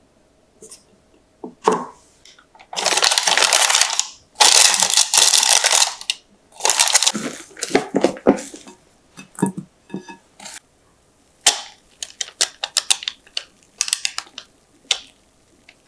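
Cooking utensils worked against a bowl while mixing batter: three long scraping, swishing stretches, then a run of quick light clicks and taps.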